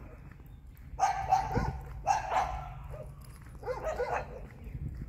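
Stray dogs barking in three short bouts, about one, two and nearly four seconds in.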